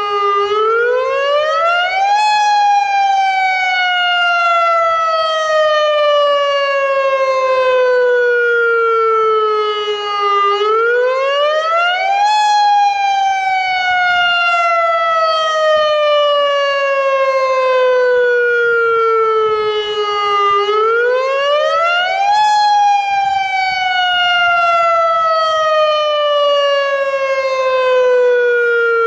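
Federal Signal Modulator AHAB tsunami warning siren sounding its wail tone: the pitch sweeps up quickly over about two seconds, then slides slowly down over about eight, repeating about every ten seconds. This is the wailing tone used in real emergencies to signal a tsunami evacuation, sounded here for a drill.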